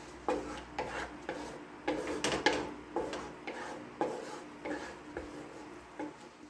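Wooden spatula scraping and stirring thick chili sauce around a stone-coated nonstick wok, in repeated short strokes about twice a second.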